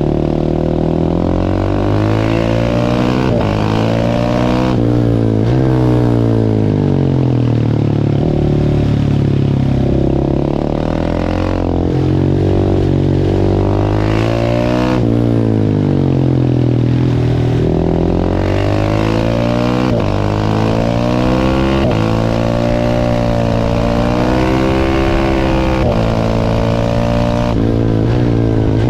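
A single-cylinder supermoto motorcycle engine of the 690 class (KTM/Husqvarna LC4) being ridden hard, its pitch climbing and dropping again and again as it accelerates and comes off the throttle.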